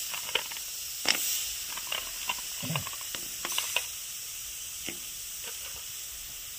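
A little water sizzling in a kadhai as lumps of jaggery are dropped in, with scattered clicks and taps of the lumps landing against the metal pan, mostly in the first few seconds.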